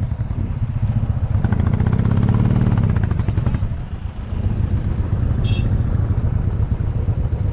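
Royal Enfield Bullet's single-cylinder engine running at low speed on a rough gravel mountain road, its steady thump swelling louder for a couple of seconds about two seconds in, then settling back.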